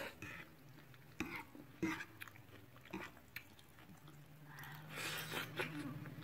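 Spicy instant noodles being chewed and slurped close to the microphone, with a few sharp mouth or cutlery clicks and a longer hissy slurp about four and a half seconds in.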